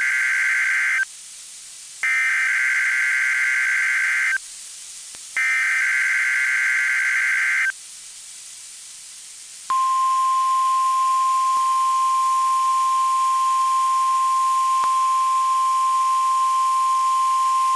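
NOAA Weather Radio station WXK52 sending its Required Weekly Test: the end of one SAME digital header burst and then two more, each separated by about a second of hiss. About 10 seconds in, the steady 1050 Hz warning alarm tone begins and holds.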